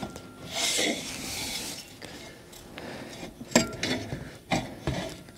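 Knocks and light metal clinks as a truck's engine fan and fan clutch are worked by hand on the hub, with a short hiss near the start and three sharper knocks in the second half.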